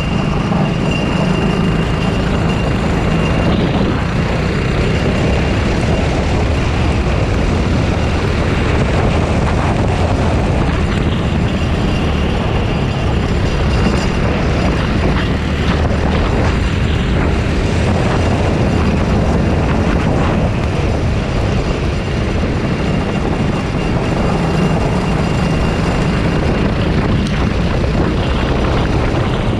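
Racing kart engine running hard and heard onboard, its note rising and falling as the kart laps, under a constant rush of wind and road noise.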